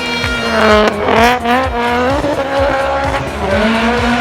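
Rally car engine at high revs; its pitch climbs sharply about a second in, then holds fairly steady.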